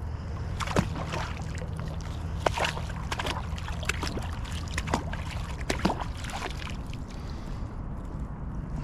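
Water sloshing and trickling with scattered small clicks and knocks as a magnet-fishing magnet and its rope are worked in the river, over a steady low rumble.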